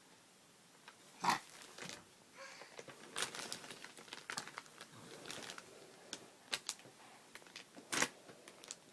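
Faint crinkling and rustling with scattered sharp clicks, like paper or plastic being handled, with a denser patch of crackling in the middle.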